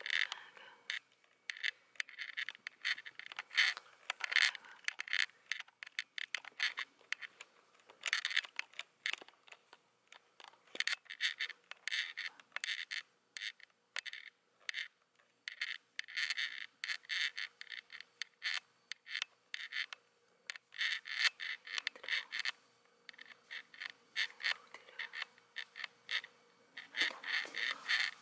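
Cat's claws scratching at a corrugated cardboard scratcher: dry crackly scratching in repeated bursts of a second or two, with short pauses between.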